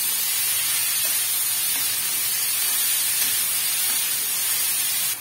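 Grated cabbage and carrot sizzling steadily as they fry in hot oil, stirred with a spatula.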